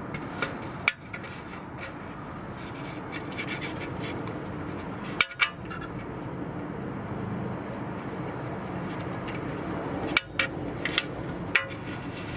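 Hand tools working the 5 mm retaining bolt of a BMW ABS wheel-speed sensor: a handful of sharp metallic clicks and taps spread a few seconds apart, over steady low background noise.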